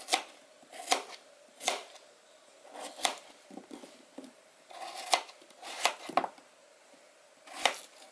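Kitchen knife cutting raw white yam into chunks on a metal plate, each stroke ending in a sharp click of the blade on the metal. There are about eight clicks, spaced irregularly about a second apart.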